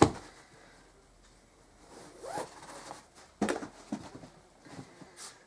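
A thump right at the start, then several short scratchy rasps and swishes of bag fabric as camping kit is handled and pulled out of a rucksack.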